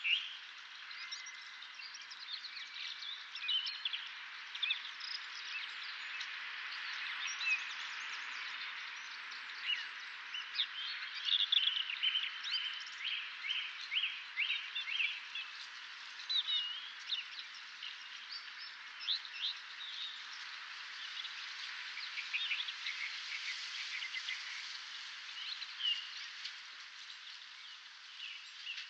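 Dawn chorus: many songbirds singing and chirping over one another, with quick trills and short notes, over a steady hiss.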